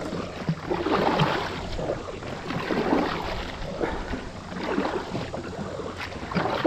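Water sloshing and splashing around a kayak, in uneven surges, with a couple of sharp knocks near the end.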